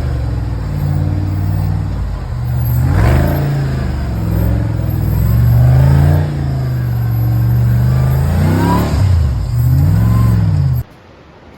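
Off-road buggy engine revving up and down several times under load, its pitch rising and falling. The sound cuts off abruptly near the end.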